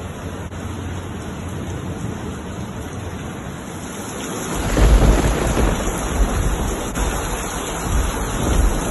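Steady rain hiss, then from about halfway a loud low rumble sets in over it, swelling and easing unevenly.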